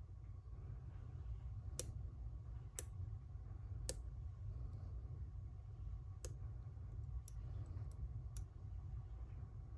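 Lock pick and tension tool working the pins of a Schlage Primus high-security lock cylinder, giving sharp, irregular clicks, about eight over the stretch, the loudest in the first six seconds.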